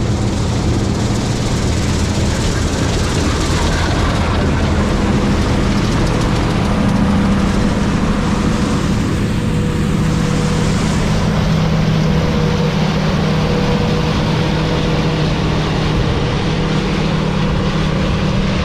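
Combine harvester running steadily while harvesting soybeans: a constant engine tone under a loud rushing noise of the machine at work.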